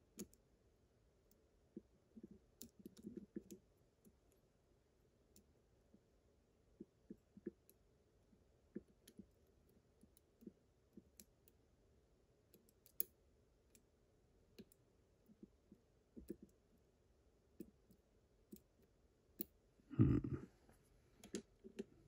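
Faint, irregular clicks of a lock pick working the wafers of a slider cam lock held under light tension by a tension wrench. Near the end comes one louder, longer handling noise.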